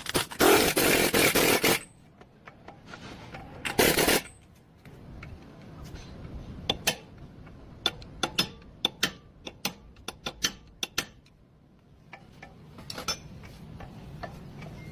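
Metal tools and parts clinking and knocking during car repair work, with a loud burst of noise at the start and another about four seconds in, then a string of sharp clinks.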